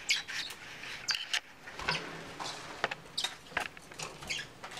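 Bourke's parakeets scrabbling about the cage and new wooden nest box: scattered short scratches and taps, irregular, with no steady rhythm.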